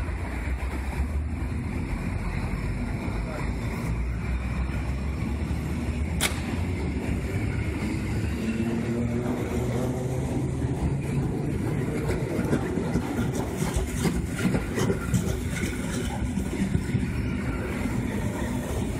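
EN57 electric multiple unit pulling away from the platform: a deep rumble, then the traction motors' whine rising in pitch as the train gathers speed, with a few sharp clicks in the second half.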